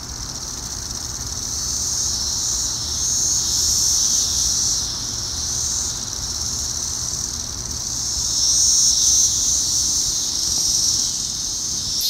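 Chorus of Brood X periodical cicadas (magicicadas) singing in the trees: a continuous high buzzing drone that swells and fades in slow waves, over a low rumble.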